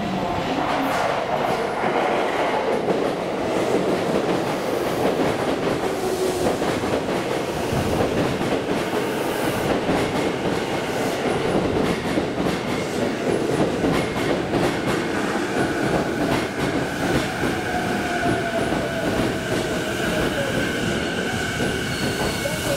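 JR East E233 series electric commuter train running into the station and slowing to a stop beside the platform, its wheels clattering over the rail joints. A faint whine falls in pitch in the second half as it slows.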